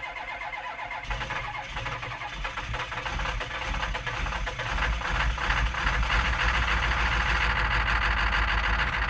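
A machine running steadily: a dense, even mechanical noise that grows a little louder about halfway through.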